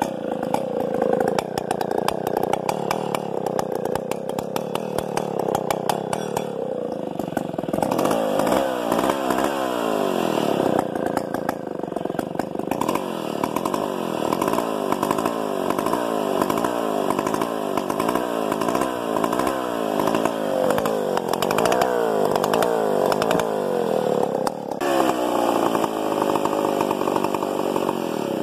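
Stihl 070 AV chainsaw's big two-stroke engine running, steady for several seconds and then its speed rising and falling over and over as the throttle is worked.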